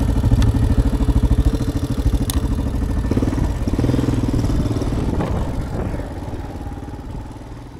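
ATV engine running as the quad rides along a dirt trail, its note shifting a little about three seconds in. The sound fades out over the last few seconds.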